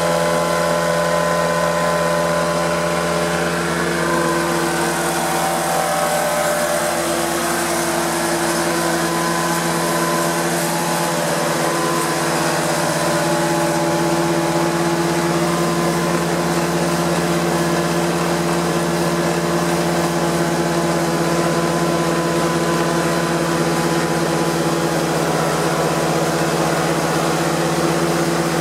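Prochem Performer 405 truck-mount carpet cleaner running steadily: its Nissan A15 engine driving the Sutorbilt vacuum blower and Cat pump, a constant drone with a held pitch.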